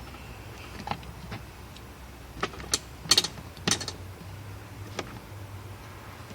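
Handling noise of electrical wire being looped around a stiff wire coat hanger: scattered short clicks and scrapes, the loudest a little past three seconds in, over a low steady hum.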